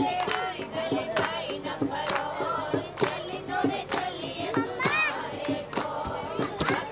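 A group of women singing together, with hand clapping in time at about two claps a second.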